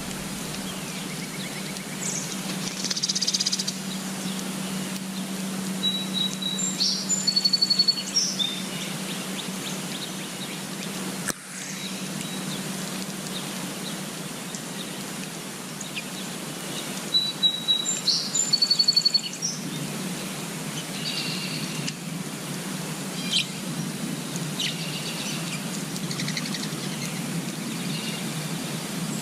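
Small birds chirping and trilling in short, high-pitched phrases over a steady outdoor background hiss and low hum. The calls come in two busy clusters, one a few seconds in and one past the middle, with scattered single chirps after.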